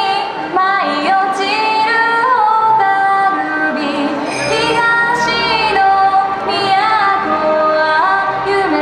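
Yosakoi dance music with a woman singing a melodic line throughout. A deep bass part comes in about four seconds in.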